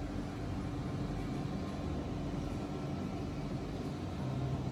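Steady low mechanical hum, like a ventilation or climate fan, with a few held low tones; one more low tone joins near the end.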